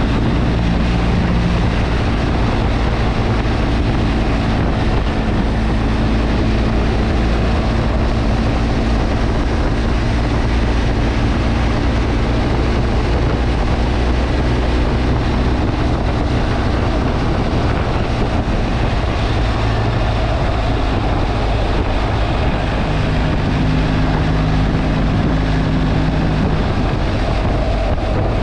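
Motorcycle under way at a steady speed: the engine's steady drone under wind rushing over the microphone.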